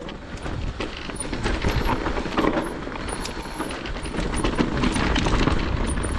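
Electric mountain bike ridden over a rough trail: a steady rush of tyre and wind noise with many quick rattles and clicks from stones, chain and frame, a little louder after about a second.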